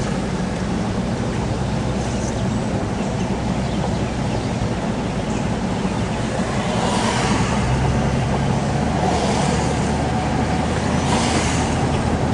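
A car driving: steady engine and road noise, with two louder swells of hiss about seven and eleven seconds in.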